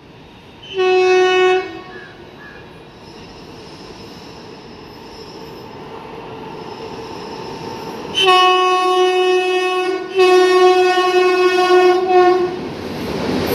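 Indian Railways electric locomotive horn: a short blast about a second in, then two long blasts with a brief break between them from about eight seconds in. Under the horn, the rumble of the approaching train rises as it runs into the station and passes.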